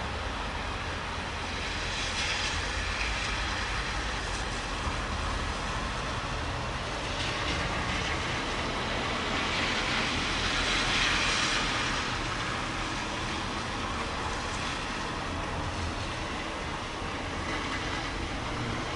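Steady rain hiss during a thunderstorm, swelling a few times, most strongly about ten to twelve seconds in.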